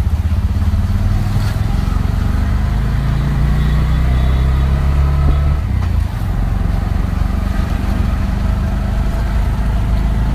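Engine of a slowly moving motor vehicle running with a steady low drone and road rumble, easing off about six seconds in.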